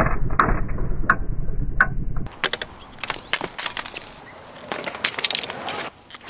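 Skateboard wheels rolling on concrete under a fishing-rod skateboard, a steady low rumble with three sharp clicks. About two seconds in the sound changes to a string of sharp clacks and rattles as the rod board's trucks and wheels hit the concrete.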